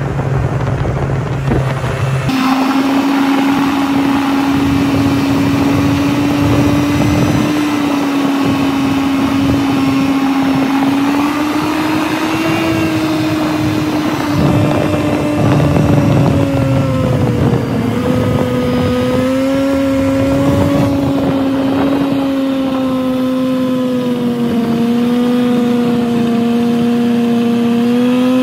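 Snowmobile engine running at a steady cruising speed: its whine comes in strongly about two seconds in and holds a fairly even pitch, rising and dipping slightly, over a low wind rumble on the microphone.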